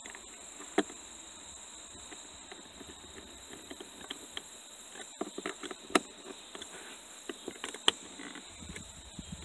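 Small clicks and taps of plastic mounting tabs and screws being handled and fitted against a car's plastic console trim panel, with a few sharper clicks about a second in, around six seconds and near eight seconds, over a steady high hiss.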